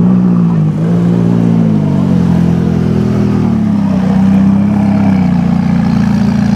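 McLaren 570S twin-turbo V8 running at low revs through its exhaust. The revs rise and fall once early on, then settle into a steady low note.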